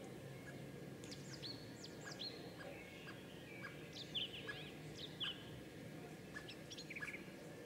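Garden birds singing and calling: a scatter of short, high chirps and quick down-slurred whistles over steady background noise, loudest a little over four seconds in and again about a second later.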